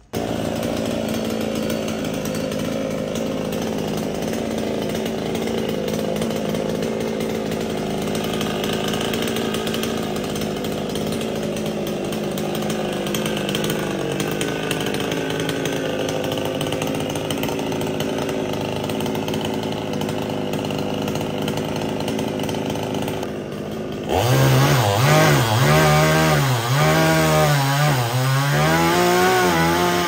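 Chainsaw running steadily at high speed. About 24 seconds in it becomes louder and closer, and its engine note dips and recovers again and again as the chain cuts into a jackfruit branch.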